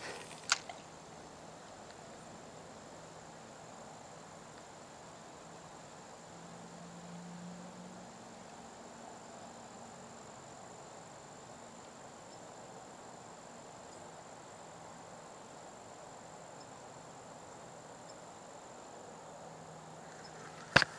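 Crickets trilling, a steady high-pitched chirring, with a sharp click about half a second in and another at the very end.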